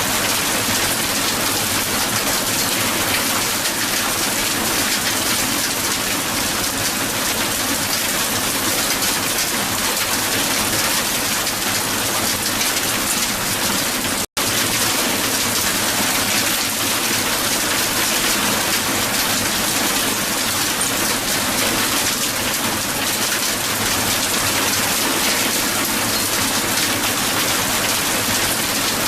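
Strong hail falling onto the ground: a dense, steady pelting of countless small impacts, with a momentary cut-out about halfway through.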